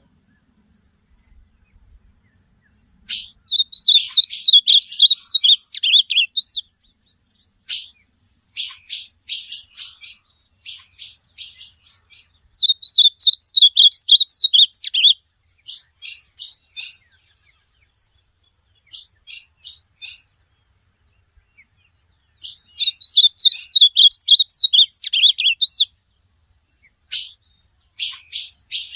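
Ultramarine grosbeak (azulão) singing: three rich warbled song phrases of about two to three seconds each, separated by runs of short, sharp chip notes.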